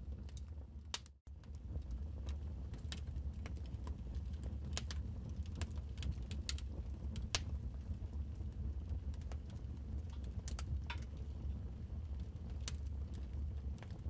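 Wood fire crackling: irregular sharp pops and snaps over a steady low rumble. The sound cuts out for a split second about a second in.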